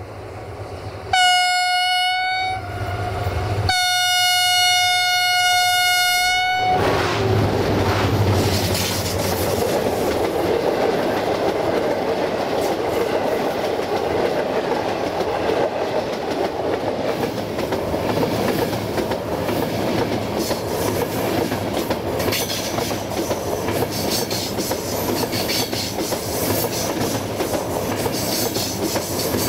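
A diesel locomotive's air horn sounds two single-note blasts, a short one and then a longer one of about three seconds. Then its passenger train runs close by: a loud steady rumble of coaches with wheels clattering over the rail joints.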